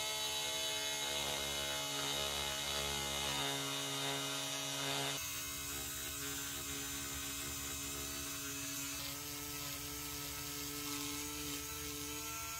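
Electric rotary tool with a small sanding drum running as it sands the worn leather edge of a handbag, a steady whine made of many tones. The pitch pattern shifts abruptly about five seconds in.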